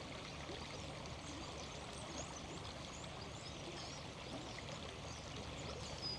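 Small river running: a steady babble of flowing water, with faint short high chirps scattered through it.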